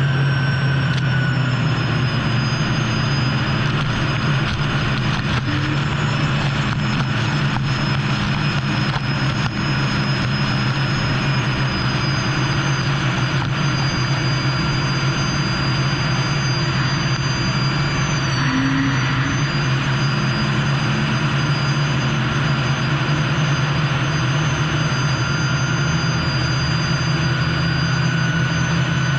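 Unlimited hydroplane's gas-turbine engine running steadily at speed, picked up by an onboard camera. A high turbine whine sits over a continuous rushing noise, and its pitch dips briefly about two-thirds of the way through.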